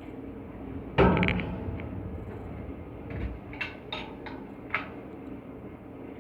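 One loud clank about a second in, then four or five lighter knocks and clicks a few seconds later, over a steady machine hum: tools and hardware being handled during V-belt work on an air handling unit blower.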